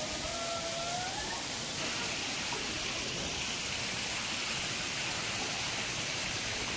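Steady rush of running water that grows fuller about two seconds in, with a short rising call over it at the start.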